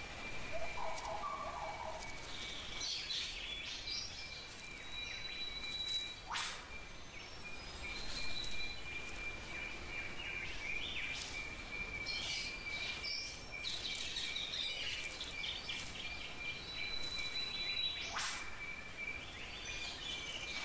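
Forest ambience: birds chirping and calling over a steady high insect drone, with two sharp calls that sweep quickly upward, about twelve seconds apart.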